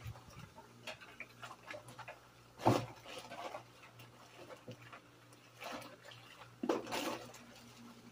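Dishes being hand-washed in a kitchen sink: dishes and plastic containers clattering, with one sharp clack between two and three seconds in, and water splashing about two thirds of the way through. A faint steady hum sits underneath.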